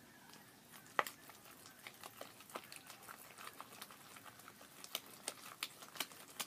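Homemade glue slime being worked at the table, giving a run of faint sticky clicks and pops, one sharper pop about a second in and a quicker cluster near the end.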